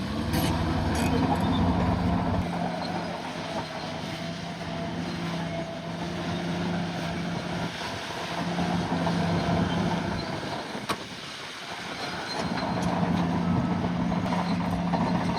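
Bulldozer's diesel engine running, getting louder and quieter several times as the load changes, with a dip about eleven seconds in and a single sharp clank just before it.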